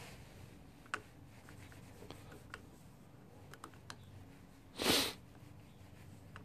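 Faint rubbing and small scattered clicks as a damp cloth wipes a scooter's plastic handlebar switch housing and controls. About five seconds in, one short, loud rush of noise stands out above the rest.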